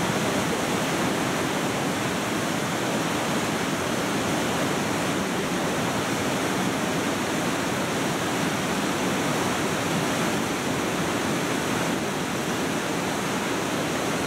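Fast whitewater river rushing over rocks, a steady, unbroken wash of water noise.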